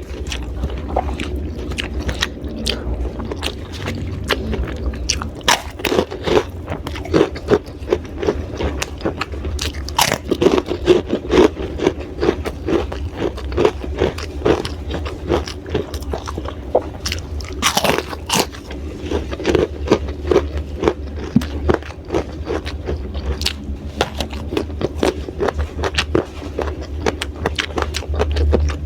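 Close-up crunching and chewing of raw vegetables (lalapan): crisp bites and steady chewing at about two to three chews a second, with many sharp wet clicks.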